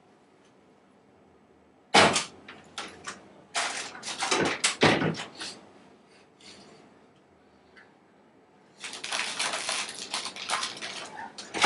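Knuckles knocking on a wooden classroom door. One sharp knock about two seconds in is followed by a run of knocks for a few seconds, and a spell of rapid knocking starts near the end.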